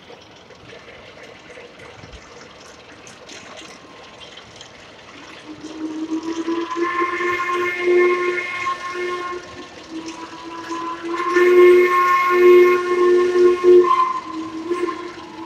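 Steam locomotive whistle sounding two long blasts, the second louder than the first.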